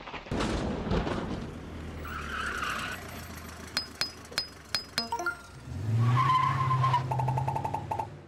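Layered sound effects for an animated logo intro: noisy whooshes, then five sharp metallic clinks in quick succession, then a vehicle engine hum with a steady high tone and a burst of rapid beeping near the end.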